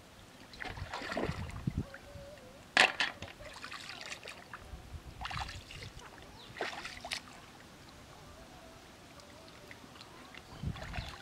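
Shallow river water splashing and sloshing in several short bursts as a person wades and reaches into it to pick up snails by hand. A single sharp clack about three seconds in is the loudest sound.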